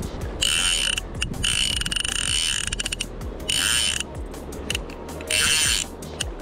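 Fly reel's drag ratcheting as a hooked fish pulls line off the spey reel: a high, even buzz that comes in several spurts, the longest lasting over a second and a half, with short gaps between.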